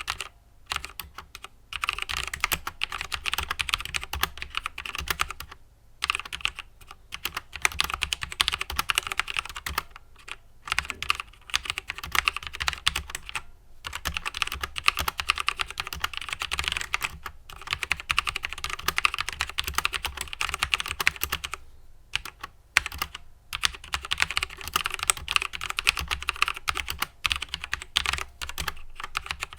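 Typing on a SteelSeries Apex M400 mechanical keyboard with QX1 switches, ABS keycaps and non-lubed plate-mounted stabilizers. Fast, continuous keystrokes clatter along, broken by short pauses every few seconds.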